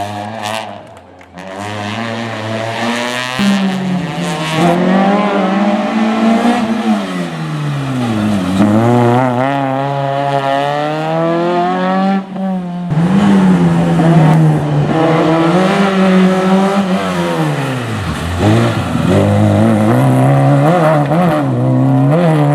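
Rally car engine worked hard through the stage. Its pitch climbs through the gears and drops back repeatedly, falling deeply twice as the car slows for corners. There is a sudden break about halfway through.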